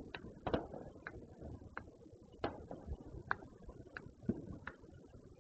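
Distant fireworks popping: a string of short, sharp reports at irregular intervals, about nine of them.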